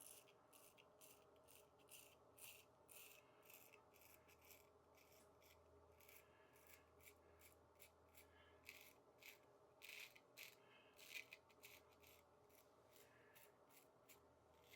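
Faint, irregular short scrapes of a Dubl Duck Pearl Duck 6/8 full hollow straight razor cutting through lathered stubble, about two or three strokes a second.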